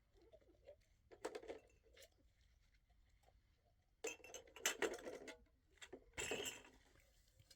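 Small hard objects clinking and clattering in three short spells: about a second in, again around four to five seconds, and once more near six seconds.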